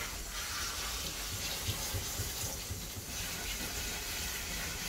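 Steady hiss of water spraying from the hand-held nozzle of a self-service dog-wash tub onto a wet dog's coat, with plain rinse water running.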